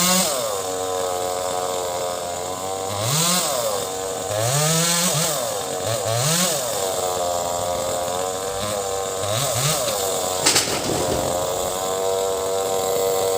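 Chainsaw running steadily, its engine revving up and dropping back several times. A single sharp crack sounds about ten seconds in.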